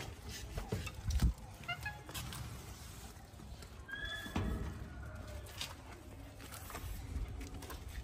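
Short high-pitched animal squeaks: a quick run of rising chirps, then one held squeal, over a few dull thumps and low background noise.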